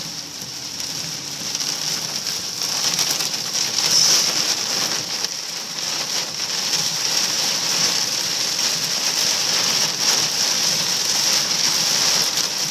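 Hail and heavy rain pelting the roof and windshield of a car, heard from inside the cabin. It is a dense clatter of many small hits that builds over the first few seconds, then holds loud and steady.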